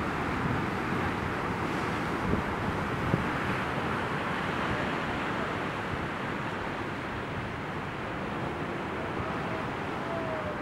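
Sea surf rushing and washing over shoreline rocks, a steady roar of breaking waves, with wind buffeting the microphone.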